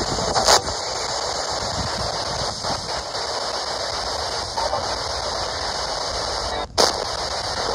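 Spirit box static: the steady hiss of a radio rapidly sweeping through stations, with brief blips of sound and a short cut-out near the end.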